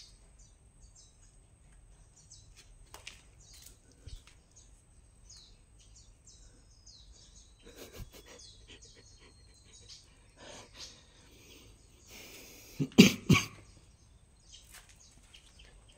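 Small birds chirping in short, high calls, some falling in pitch, scattered throughout. A person coughs twice, loudly, about thirteen seconds in.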